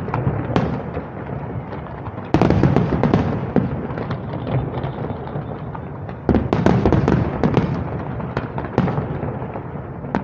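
Aerial fireworks shells bursting in rapid volleys, a continuous run of booms and crackle. Heavier salvos come in about two seconds in and again about six seconds in.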